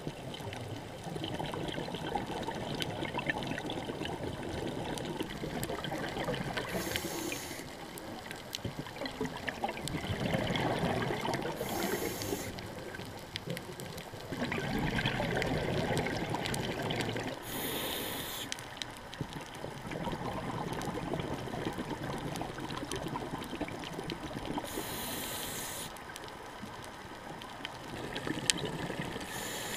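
Scuba diver breathing through a regulator, heard underwater: a short hiss of inhalation every five to seven seconds, each followed by a longer bubbling rush of exhaled bubbles.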